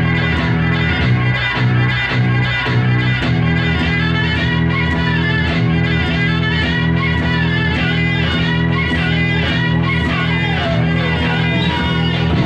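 Electronic music played live on a tabletop hardware instrument: a sustained bass drone under a steady ticking beat, with pitched synth lines that glide downward several times near the end.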